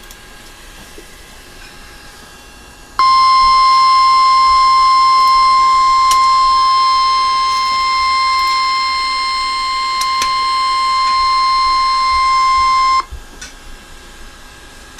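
Emergency Alert System attention tone: a single steady high tone that starts about three seconds in, holds for about ten seconds and cuts off abruptly, signalling that a severe thunderstorm warning is about to be read. Faint channel hiss before and after the tone.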